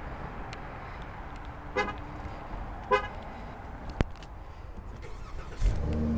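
A 2012 Dodge Journey's horn chirps twice, about a second apart, as its remote start is triggered from the key fob. A sharp click follows, and near the end the engine starts and settles into a steady idle.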